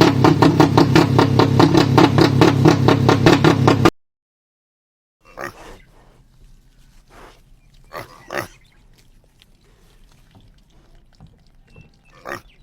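Pig sound effects. A loud run of rapid, evenly spaced grunts lasts about four seconds and cuts off suddenly; after a short gap, a much quieter clip has a few short pig calls.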